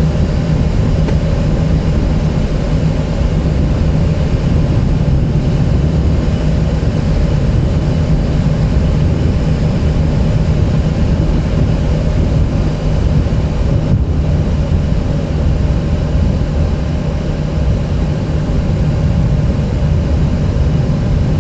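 Steady cockpit noise of a Boeing 737 airliner in flight: the jet engines' low drone with the rush of air around the flight deck, unchanging throughout.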